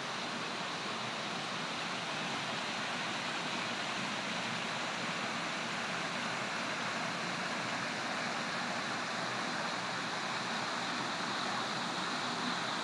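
Creek water running over small rock cascades, a steady rushing and splashing; the creek is flowing full after heavy rain.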